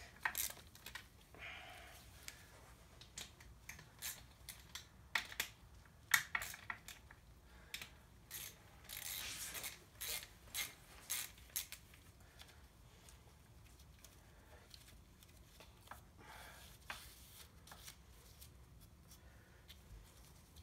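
Faint, irregular clicks and taps of hand tools on metal, with a short rasp about nine seconds in, as the bolts holding the oil pump to the engine block are worked loose.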